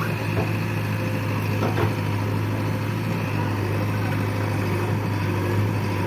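Backhoe loader's diesel engine running at a steady, even idle, a low hum, with a couple of faint clicks in the first two seconds.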